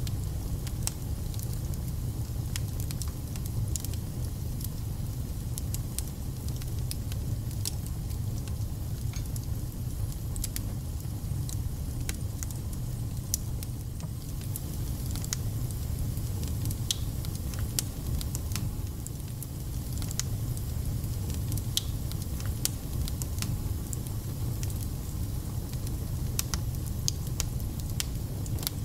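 Wood fire burning in a fireplace: a steady low rumble with frequent irregular crackles and spits from the burning logs.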